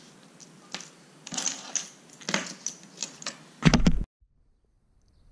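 Small hard plastic fishing lures with metal treble hooks clicking and clattering as they are handled and set down on a wooden table. A loud thump comes near the end, then the sound cuts out completely.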